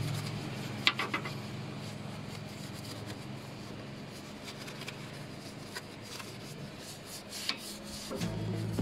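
Bristle paint brush scrubbing degreaser over the metal radiator support and radiator of a car's engine bay: a steady rubbing, with a few light knocks about a second in and again near the end.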